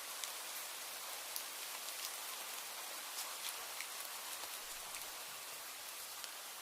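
Steady rain: an even hiss with many separate drops ticking on a surface.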